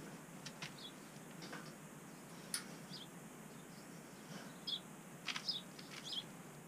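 Faint rustling and scattered light knocks from hemp wool insulation blocks being handled and pushed into place between roof rafters, with a few brief high chirps in between.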